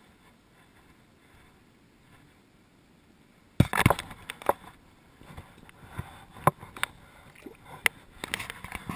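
Near silence, then from about a third of the way in, irregular splashes and sharp knocks as a hand dips a small rainbow trout into shallow water and lets it go.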